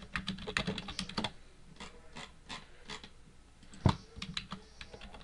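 Typing on a computer keyboard: quick, irregular keystrokes with pauses, and one louder click about four seconds in.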